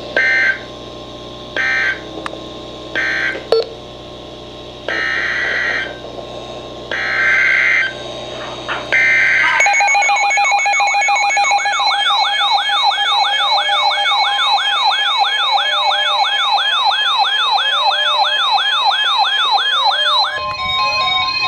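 Emergency Alert System data bursts: six short, harsh buzzing bursts at irregular gaps. About ten seconds in they give way to a loud warbling alert tone that sweeps up about two and a half times a second, changing to steadier tones near the end.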